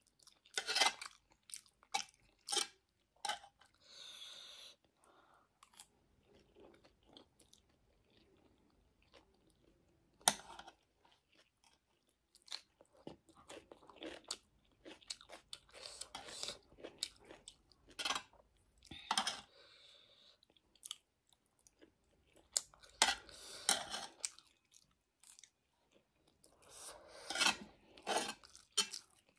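A person chewing a mouthful of ramen and buff sausage close to the microphone: crunching and sharp mouth clicks in irregular bursts, with quieter stretches between bites.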